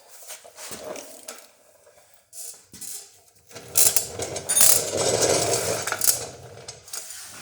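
Metal objects clinking and rattling in scattered clicks, then a louder stretch of clattering from about three and a half seconds in until near the end.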